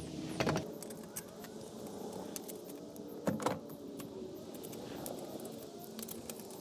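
Steel lug nuts clinking and rattling against the wheel and studs as they are threaded on by hand, with scattered light metallic clicks and two louder knocks, about half a second in and again after about three seconds.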